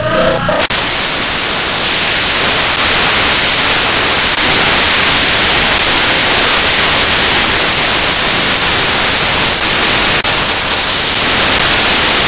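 Loud, steady static hiss across the whole range, taking over from a garbled snatch of cartoon audio under a second in. It is the broken audio track of a video rendered on an SGI Octane workstation, in place of the soundtrack.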